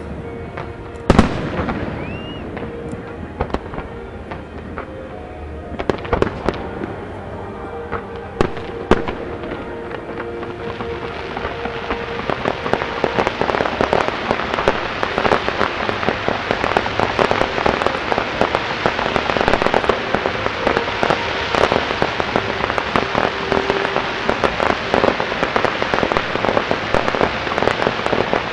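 Fireworks display heard from a distance. In the first ten seconds there are a few sharp bangs of shells bursting and a short rising whistle. From about ten seconds in, a dense, rapid crackling of crackling stars and fountains builds and grows louder.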